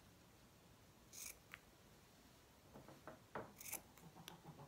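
Scissors snipping small pieces off a stiff felt beak: two quiet, crisp snips, about a second in and again past three and a half seconds, with a few small clicks between.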